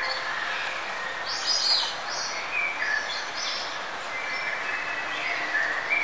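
Several birds chirping and calling in short, varied notes over a steady background hiss, busiest about one and a half to two seconds in.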